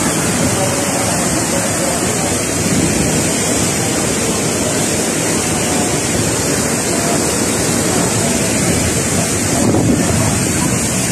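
Steady rushing noise of typhoon wind and rain over a flood of fast-running water, with the wind buffeting the microphone.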